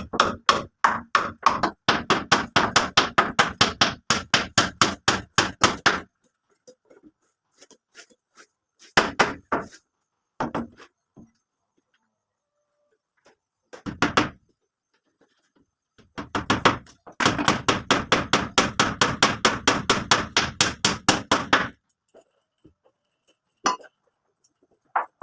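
A hammer striking in fast runs of blows, about five a second: one long run at the start, a few short bursts, then a second long run. Near the end come single knocks.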